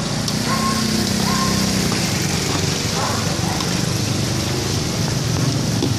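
Hot oil sizzling steadily as chips deep-fry in a large aluminium bowl and are turned with metal tongs, over a steady low motor hum.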